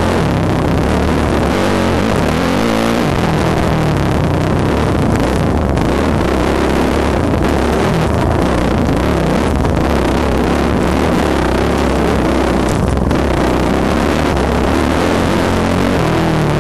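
2007 Yamaha YZ450F dirt bike's four-stroke single-cylinder engine, heard on board, running hard and revving up and down as the bike rides a wooded singletrack trail.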